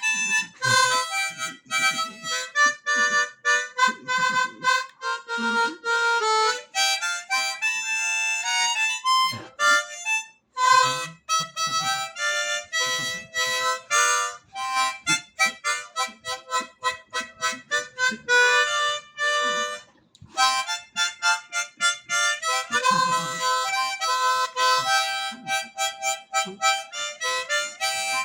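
Harmonica playing a tune of quick, short notes and chords, with two brief breaks between phrases.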